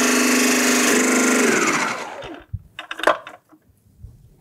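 Magimix Cook Expert food processor running its motor under the pressed-down lid to juice a lemon, a steady whine that winds down and stops about two seconds in. A few short plastic knocks follow as the lid is handled.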